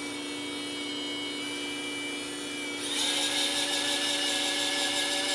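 Small electric motor of a radio-controlled model whining steadily. About three seconds in it gets louder and higher, as the throttle is opened.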